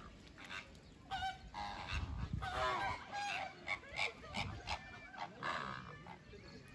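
A flock of flamingos calling: many short, overlapping calls, busiest from about two to five seconds in.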